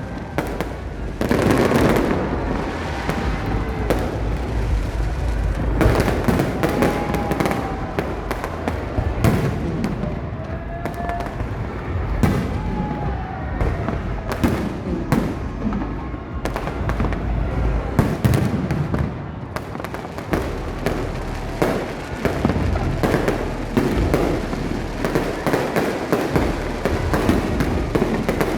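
Fireworks display with a dense, continuous barrage of bangs and crackling, and a few brief gliding tones in the middle.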